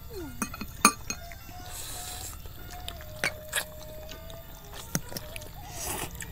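Eating noises: long noodles slurped, in short hissy pulls near 2 s and again near 6 s, between sharp clinks of metal forks and spoons against ceramic bowls. Faint background music underneath.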